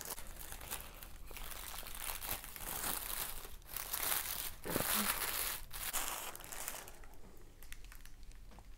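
Clear plastic wrapping crinkling and rustling as it is worked and pulled off a potted plant, with small crackles throughout, dying down about seven seconds in.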